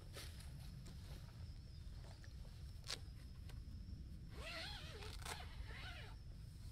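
Door zipper of a 3F UL Gear Lanshan 1 Pro tent being pulled open in two strokes, a buzzing rasp whose pitch rises and falls with the speed of the pull. A single sharp click comes a few seconds before it.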